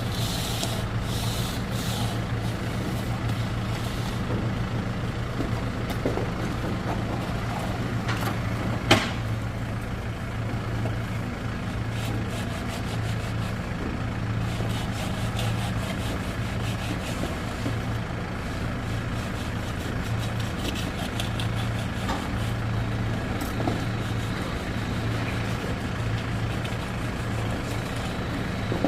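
An engine running steadily at a constant speed, with one sharp knock about nine seconds in.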